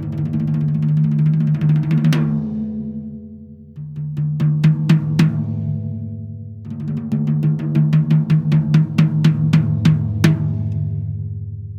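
Ludwig Raw Brass 14x6.5 brass snare drum played with the snare wires off, on stock Remo heads at factory tuning, giving an open, ringing drum tone. A roll builds to an accent about two seconds in. More strokes start near four seconds, then a steady run of strokes from about seven to ten seconds before the drum rings out.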